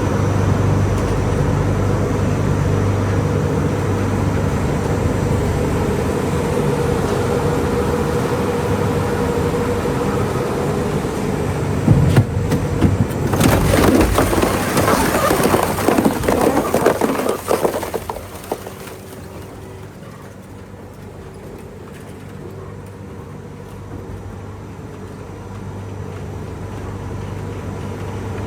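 Industrial recycling machinery running with a steady low hum; about twelve seconds in, several seconds of loud rattling and crashing break in, then it settles to a quieter hum that slowly builds again.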